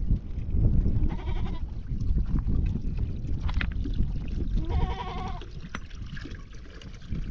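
Livestock bleating: two short, quavering bleats, about a second in and about five seconds in, over a constant low rumbling noise.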